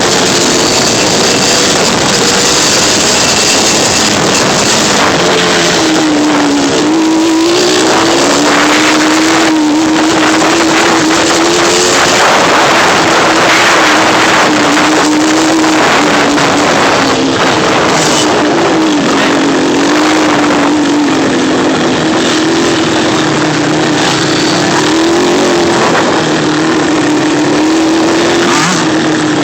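Off-road vehicle engine (ATV or dirt bike) running hard along a trail, its pitch rising and falling over and over as the throttle is worked, with a dense rush of noise around it.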